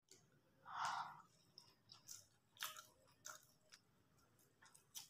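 Close-miked mouth sounds of someone eating soft chow mein noodles by hand: wet chewing and smacking, with short sharp clicks throughout. The loudest moment is a noisy swell about a second in.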